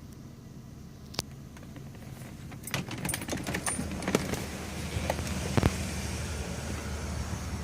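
Keys jangling and a run of sharp clicks, then a steady low hum from a BMW E46 ZHP that grows louder about three seconds in.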